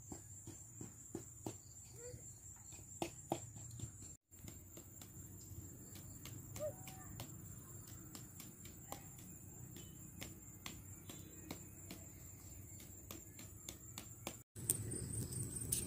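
Insects trilling in a steady, high continuous tone, with scattered faint clicks and taps; the sound drops out briefly twice.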